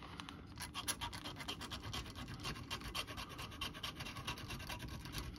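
Hand file rasping back and forth over plastic in quick short strokes, smoothing the glued seam on a round model-kit differential housing.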